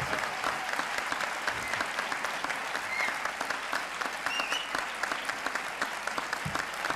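Audience applauding: dense, steady clapping from a large crowd, welcoming a speaker onto the stage.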